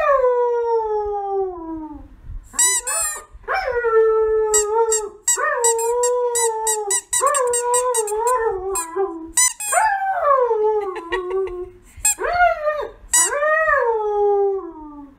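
A husky howls in long wavering howls: one long falling howl at the start, then a run of howls that rise and fall. A rubber squeaky toy is squeezed in short high squeaks between and over the howls.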